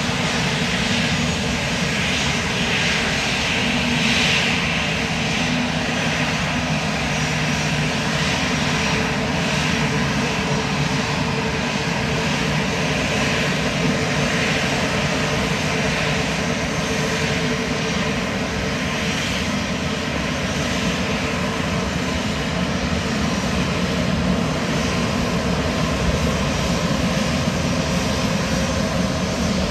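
Airliner engines running, a loud, steady noise with faint steady whining tones through it and no marked rise or fall.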